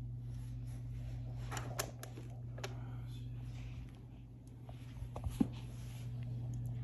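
Hoover Convertible U4047 upright vacuum cleaner running while pushed over carpet: a steady hum with a few light knocks and clicks, the sharpest about five seconds in.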